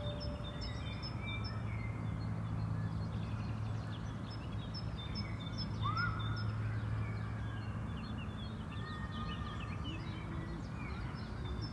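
Outdoor ambience: many small birds chirping and twittering over a low, steady rumble, with one louder rising call about six seconds in.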